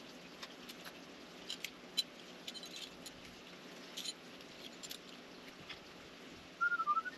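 Quiet outdoor background with scattered light ticks and rustles, then a quick run of high chirps from a small bird near the end.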